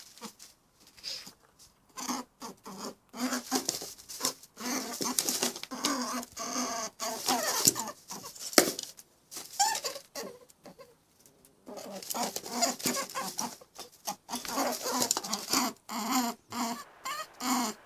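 Farm animals calling: many short, pitched calls in quick succession, with a brief lull partway through.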